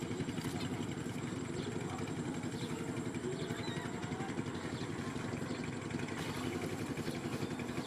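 A small engine running steadily at constant speed, with a fast, even pulse.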